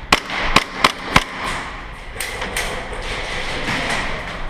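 Indoor airsoft gunfire: four sharp cracks in the first second or so, then fainter scattered cracks in the room.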